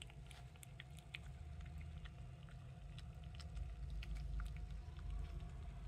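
Tabby cat lapping and licking a thin liquid treat from a ceramic bowl: a run of small, quick, wet clicks, irregular and faint.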